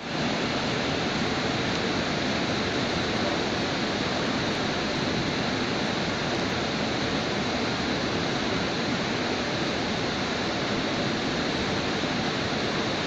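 Heavy rain falling in a downpour, a steady even hiss.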